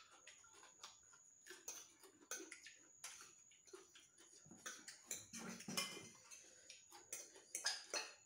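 Metal spoons and forks clinking and scraping against ceramic bowls as noodles are served and eaten, a string of light, scattered clicks.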